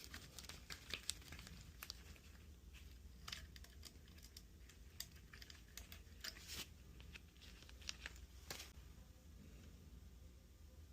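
Faint, scattered clicks and rustles of hands handling wires and small parts while wiring a boiler's low water cutoff, over a low steady hum.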